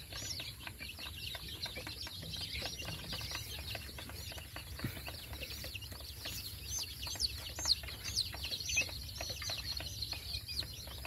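A flock of young chicks peeping continuously: many short, high-pitched cheeps overlapping one another.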